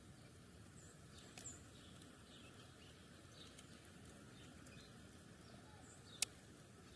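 Sparrows chirping faintly in short, scattered notes, with a sharp click about six seconds in.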